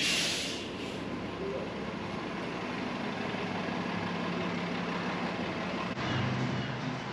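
A shuttle bus's engine idling at the stop, a steady low hum, after a short burst of air hiss at the start.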